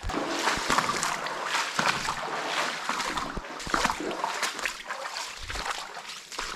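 Someone wading through shallow water, feet splashing and sloshing with each step in an uneven run.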